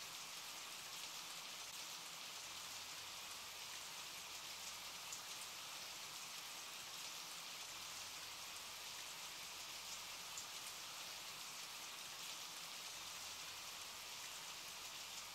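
Steady rain falling, a faint even hiss with scattered small drop ticks.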